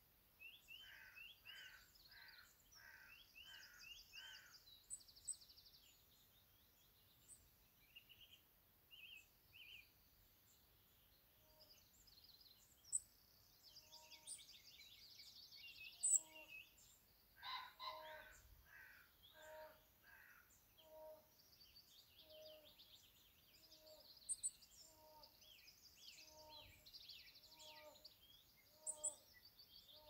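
Birdsong from several birds: quick chirps and trills throughout, with a brief burst of louder chirps just past halfway, then a repeated lower note about once a second to the end.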